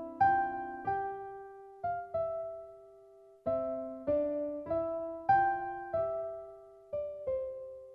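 Background music: a slow piano tune of struck notes and chords, each one fading away, with a brief pause about two seconds in.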